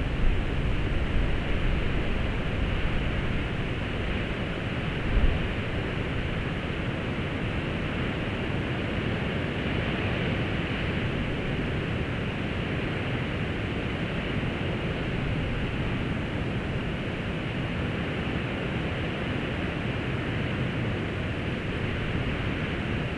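Steady distant rumble of two Class 56 diesel locomotives, each with a 16-cylinder Ruston-Paxman engine, hauling a loaded log train, mixed with a steady hiss of wind.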